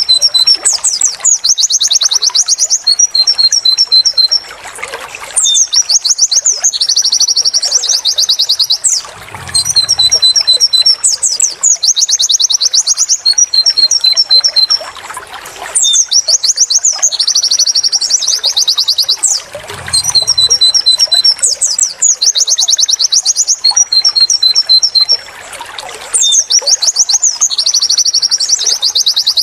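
White-eye (pleci) song, a tutor recording of the 'wit wit tulit tulit' type. Rapid high chirps and trilled phrases repeat in the same sequence about every five seconds.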